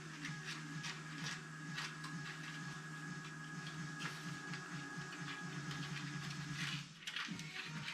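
Many light clicks and taps from small model-glider parts being handled and fitted, over steady background music.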